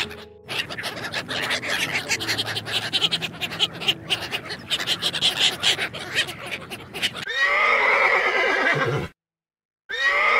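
Several seconds of dense, clicky duck chatter, then a horse whinnies loudly. The whinny falls in pitch and lasts under two seconds. After a short silence, a second whinny starts near the end.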